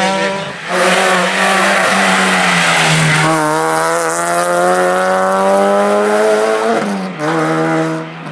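Rally cars' engines running at high revs in clips cut one after another. In the longest clip the engine's pitch climbs steadily as the car accelerates, then drops suddenly near the end.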